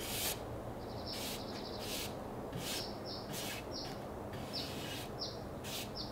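Paintbrush swishing across wooden slats as it lays on a thick, paint-like redwood deck stain, in short irregular strokes. Short, high, falling chirps sound between the strokes, over a faint steady hum.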